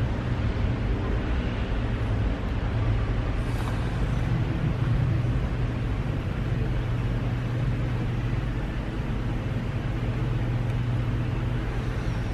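Airport fire tender's engine running as it drives slowly across the apron: a steady low rumble, a little louder a few seconds in.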